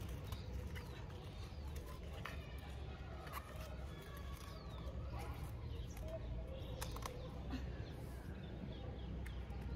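Outdoor birds chirping, with pigeons cooing, over a low steady rumble. A few sharp clicks of pruning shears snipping stems come through now and then.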